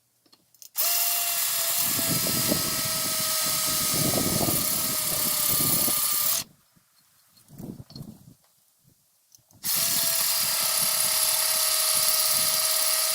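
Electric drill grinding a bit into a hard porcelain flower pot to bore a drainage hole, with a steady motor whine over gritty grinding noise. It stops about six seconds in, a few faint low sounds follow in the pause, and the drill starts again about three seconds later.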